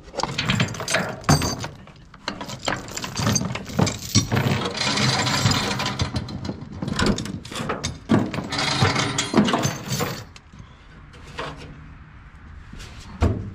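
Clanks, knocks and metal scraping as the sheet-metal hood of an old Ford 8N tractor is opened and the rusty fuel-tank cap is handled, with two longer scrapes in the middle.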